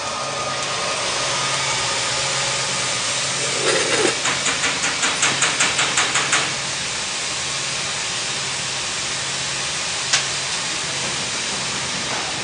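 Electric welding arc crackling and hissing steadily as a bead is run, over a low hum. Near the middle the arc pulses rhythmically for a few seconds, about four times a second, and one sharp click comes near the end.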